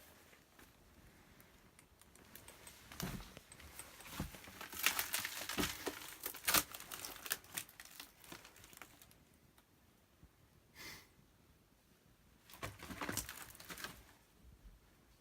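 Rustling and crinkling with scattered clicks, busiest from about three to eight seconds in and again near the end, with a quiet stretch in between.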